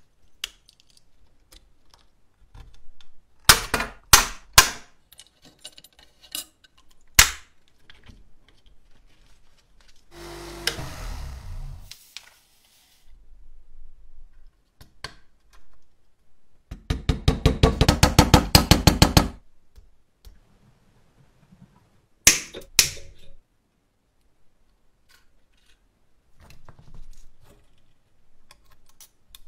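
Small metal parts and screws of a 1970 Tonka Formula One toy car being handled and fitted together: scattered sharp clicks and knocks, a short noisy scrape about ten seconds in, and a rapid run of even clicks lasting about two and a half seconds past the middle.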